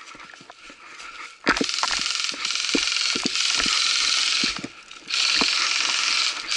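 Airsoft electric rifle firing on full auto: a long burst of about three seconds, then after a short pause a second burst of about a second and a half, the rapid rattle of the gearbox cycling.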